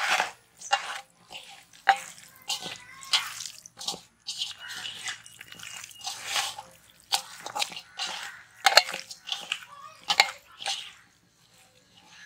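Hands squishing and squelching raw chicken pieces through a wet spice marinade in a steel bowl: irregular wet squelches as the meat is kneaded and turned.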